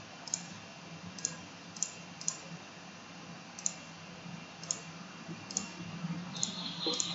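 Sparse, irregular clicks of a computer mouse and keyboard, about nine in all. A faint steady high tone comes in about six seconds in.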